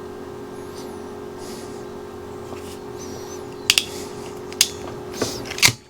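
Hand crimping tool closing on an insulated wire terminal: a few sharp clicks about four seconds in and near the end, over a steady low hum.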